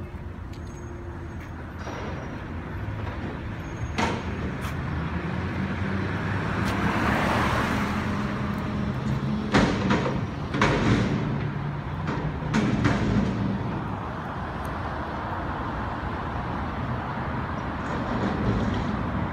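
Front-loader garbage truck's diesel engine running and revving up to drive the hydraulics as the forks lift a commercial dumpster over the cab, then several loud metal bangs as the container is dumped into the hopper, before the engine settles back to a steady run.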